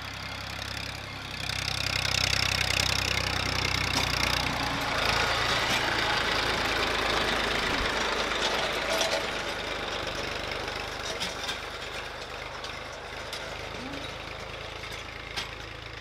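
Tractor engine running steadily as it pulls a harrow through the manure bedding of a cow yard, turning the manure over to dry it.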